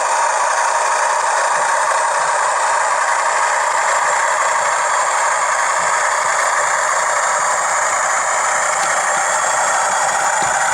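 TTS sound decoder in a Bachmann Class 40 model locomotive playing a steady diesel engine sound through its small standard 8-ohm speaker, with no bass below the midrange.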